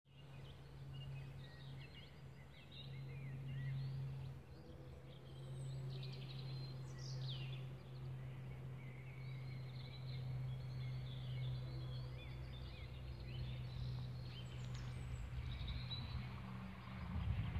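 Birds chirping and trilling over a steady low hum. Near the end a broader rumble begins to swell as a car approaches.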